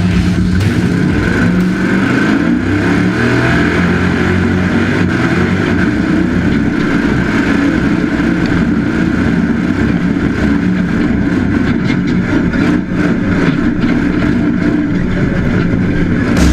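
Off-road race truck's engine running hard, its revs rising and falling continuously over a steady rush of road and wind noise.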